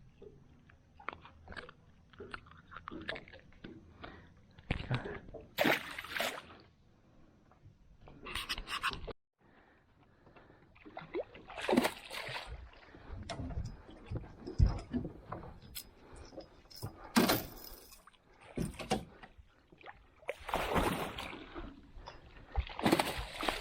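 Handling noise in a small aluminium fishing boat: scattered knocks and clatter with several short splashy bursts of noise.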